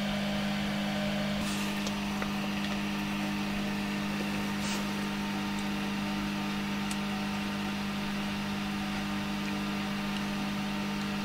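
Steady electric hum of a small appliance's cooling fan running under load, one constant low tone with fainter overtones. A few faint ticks sound over it.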